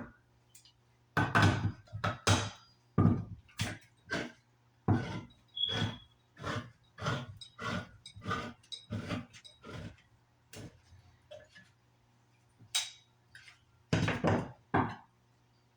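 A can of condensed milk being opened with a hand can opener: a run of sharp metal clicks and knocks, about two a second, with a brief squeak partway through.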